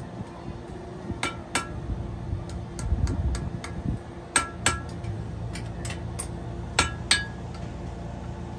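A small blacksmith's hammer striking hot steel on an anvil, scrolling the end of a half horseshoe, with a metallic ring after each blow. Lighter taps are scattered between three louder pairs of quick strikes.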